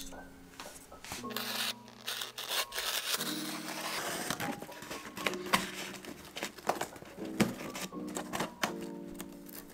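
Packing tape on a cardboard box being slit with a blade and peeled off, a crackling tear with scrapes and small taps on the cardboard. Soft background music plays underneath.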